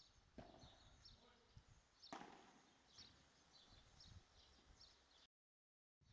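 Faint padel rally: a few sharp pops of the ball off rackets and the court walls, the loudest about two seconds in, with short high chirps in the background. The sound cuts out completely for a moment near the end.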